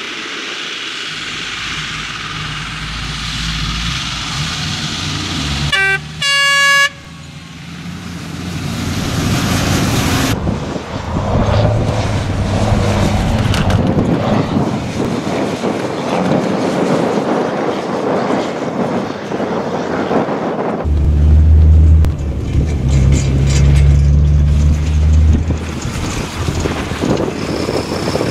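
MAN rally trucks driving hard off-road, their diesel engines running loudly and rising and falling with the throttle, heaviest and deepest late on. A short, loud horn blast sounds once about six seconds in.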